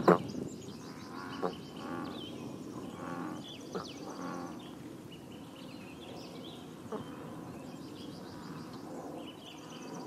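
Bullfrogs croaking in a pond: several short low croaks a second or two apart, with a fast high ticking trill coming and going above them. A sharp pop at the very start is the loudest sound, and a few fainter clicks follow later.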